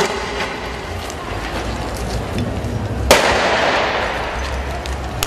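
A single loud blast about three seconds in, echoing off the surrounding buildings as it dies away, over crowd noise in a street riot.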